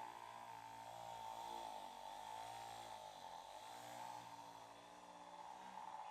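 Electric vibrating massager's motor buzzing faintly, its pitch sagging and recovering a couple of seconds in.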